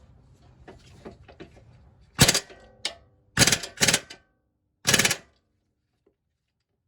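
Impact gun hammering in four short bursts, from about two seconds in, on the 17 mm bolt at the bottom of a Lexus IS front strut, loosening it; faint clicks of handling come before.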